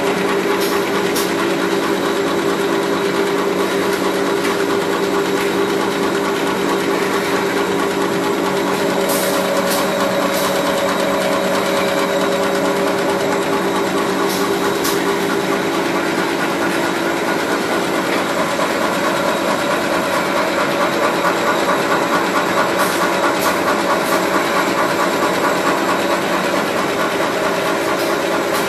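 Rotary cutting machine for A4 paper running steadily: a continuous mechanical hum with a fast, even clatter from its rollers and cutter, and a few sharp clicks about nine, fourteen and twenty-three seconds in.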